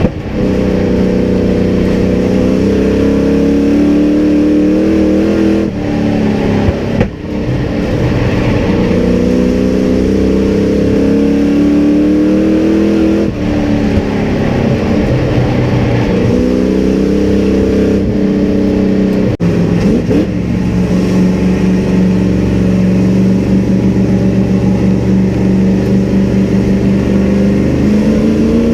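Race truck engine heard from inside the cab at full racing load. The pitch climbs on the straights and drops sharply several times as the driver lifts for the corners, then climbs again.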